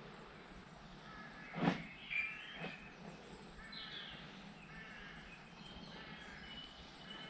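Birds chirping over a steady outdoor background, with three short knocks close to the microphone about two seconds in, the first the loudest.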